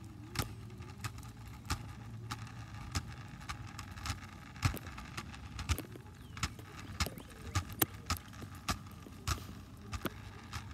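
Self-balancing hoverboard rolling over pavement: irregular clicks and knocks over a low steady hum.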